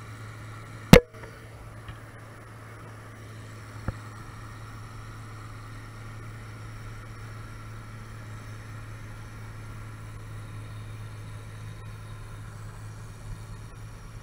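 Steady low engine drone that holds even throughout, with a sharp click about a second in and a smaller one near four seconds.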